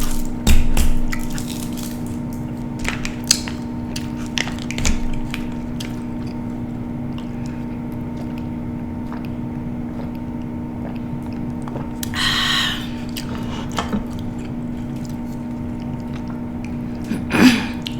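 Close-miked eating sounds, chewing with short mouth clicks mostly in the first few seconds, over a steady low hum. Near the end there is a short vocal sound that falls in pitch.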